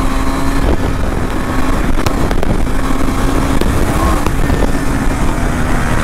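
Motorcycle engine running steadily while cruising at around 100 km/h, with a low rumble and wind rush over the on-bike microphone.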